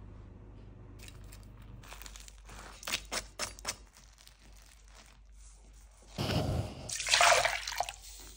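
Water pouring into a bowl, splashing and bubbling for about two seconds near the end. Before it come a few short clicks.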